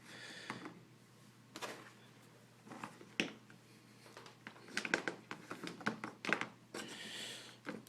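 Faint handling noises of multimeter test probes and a cable being held against connector pins: scattered light clicks and rustling, with one sharp click about three seconds in and a cluster of small clicks a little past the middle.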